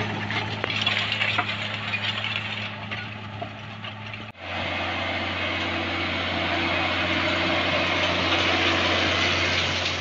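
Tractor diesel engine running steadily while pulling field implements through dry soil. It is first a Deutz-Fahr pulling a seed drill, then, after an abrupt cut about four seconds in, an Ursus pulling a cultivator, with a similar steady drone.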